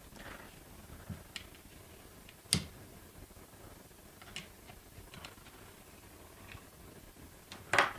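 Scattered small clicks and ticks of a hex key turning the middle screw of a fiberglass-reinforced polymer buttstock's cheek rest, with one sharper click about two and a half seconds in and another near the end.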